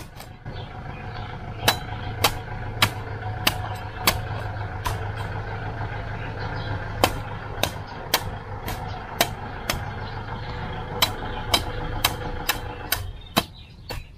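Heavy cleaver chopping the husk of a young green coconut: sharp strikes about two a second, in runs with a pause in the middle. A steady engine drone runs underneath and stops near the end.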